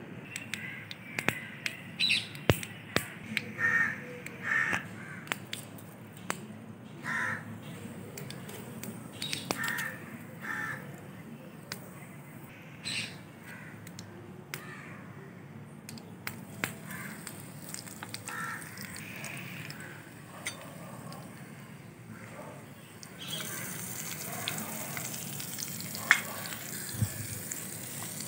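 Crows cawing again and again in the background. About three-quarters of the way through, a steady sizzle starts as chopped onions, garlic and curry leaves fry in hot oil in a small clay pot.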